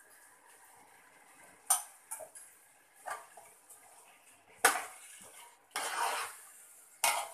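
A long metal ladle stirring raw chicken pieces into thick masala in a large aluminium pot, clanking sharply against the pot four times, with a second of scraping about six seconds in.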